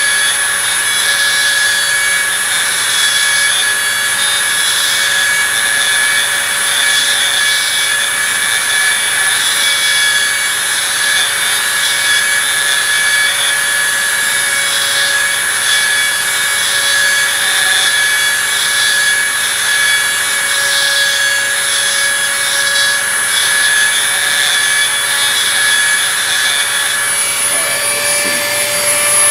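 A high-speed rotary tool runs steadily with a small abrasive stone grinding a small steel part. A gritty grinding rasp comes and goes over the motor's steady whine. Right at the end the tool is switched off and its pitch falls as it spins down.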